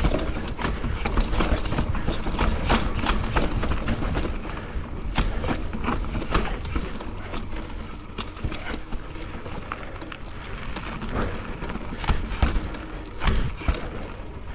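Enduro mountain bike descending fast over a rough, rooty and rocky trail: frequent irregular clacks and rattles as the tyres, chain and frame hit roots and rocks, over a steady low rumble of wind on the helmet camera's microphone.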